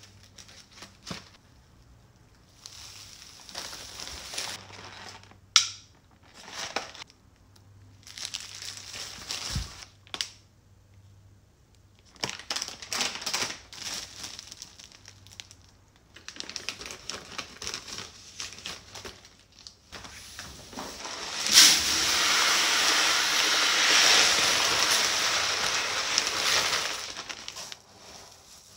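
Plastic grocery packaging crinkling and a shopping bag rustling as items are lifted out and set down, in short separate bursts. About two-thirds of the way through comes a longer, louder stretch of rustling and rattling.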